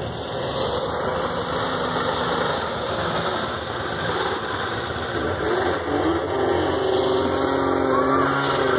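Snowmobile engines running as a small youth snowmobile passes close by. A larger snowmobile then approaches, its engine tone rising toward the end.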